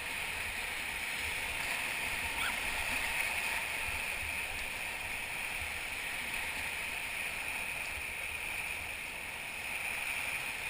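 Steady rush and gurgle of river whitewater around a raft, with low uneven thumping underneath.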